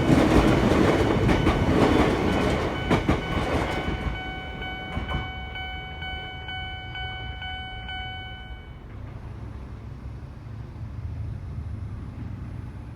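A Chichibu Railway train passes over the level crossing, its wheels clattering over the rail joints, and fades away about four seconds in. The crossing's warning bell keeps ringing after the train has gone, then stops at about nine seconds, leaving a low steady hum.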